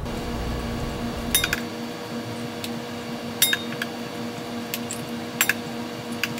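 Kitchen utensils clinking against a stainless steel mixing bowl and a plate: several sharp clinks, each with a short ring, about a second apart, over a steady low hum.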